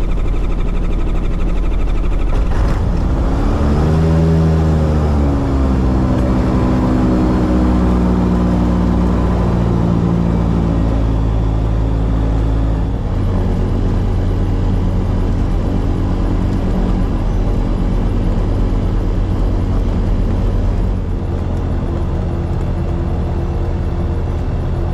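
Titan Tornado S light aircraft's engine running, heard from inside the cockpit. About three seconds in its pitch rises and dips back, then it runs steadily.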